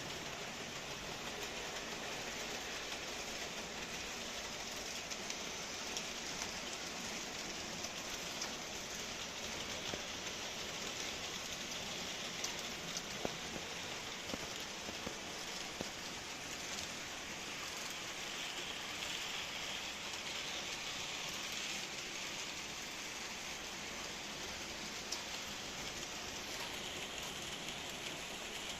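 H0-scale model train running on a Märklin AC layout: a steady rolling rush with occasional faint clicks from the wheels over the track.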